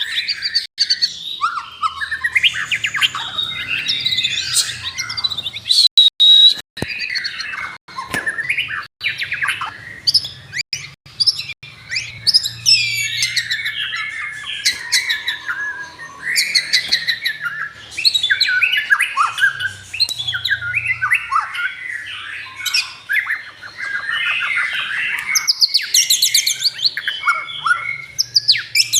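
A songbird singing a long, varied song of rapid chirps, trills and whistled glides, almost without pause.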